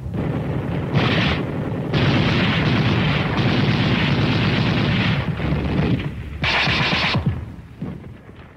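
Battle sound of machine-gun fire in rapid bursts, the longest lasting about three seconds, mixed with booms of explosions. It dies away near the end.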